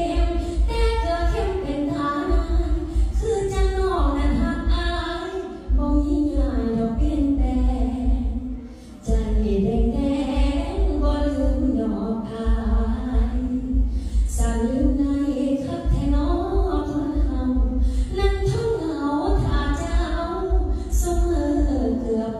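A woman singing a slow, melodic song into a handheld microphone, with a low pulsing bass underneath.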